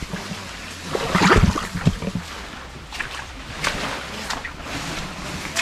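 Stream water splashing and sloshing in irregular splashes, loudest about a second in.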